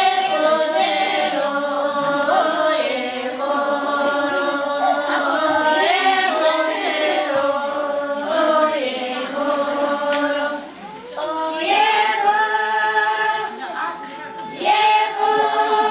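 A group of Upper Mustang women singing together in unison, unaccompanied, in long held phrases with short breaks between them.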